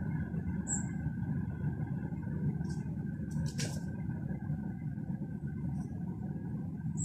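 Steady low background rumble, with a few short high chirps and a brief swish about three and a half seconds in.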